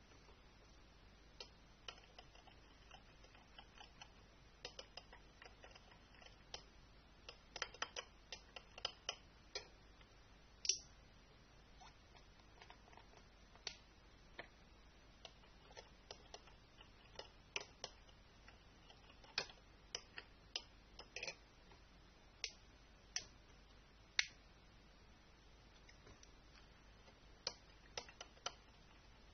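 Homemade slime being handled, giving irregular small clicks and pops, some in quick clusters, over a near-silent background.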